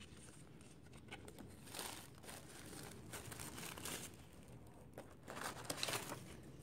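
Paper coupons rustling and crinkling softly as they are handled, in several short bursts.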